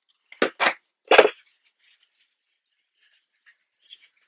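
Three short knocks and scrapes in the first second or so, as a hexagonal box lid and craft tools are handled and moved on a cutting mat, then a few faint ticks.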